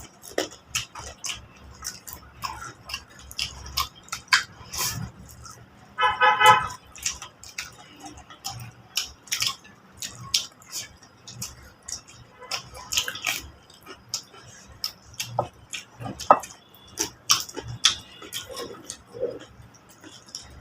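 Close-up eating sounds from a whole-chicken eating challenge: chewing, wet mouth clicks and lip smacks, irregular and frequent. A brief pitched sound, like a short hum or call, about six seconds in.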